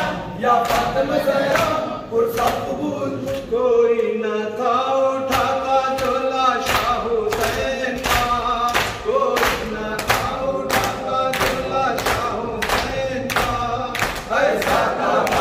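A noha (Muharram lament) chanted by a male reciter through a microphone, with the men joining in chorus. Open hands slap chests in matam, keeping a steady beat under the chant.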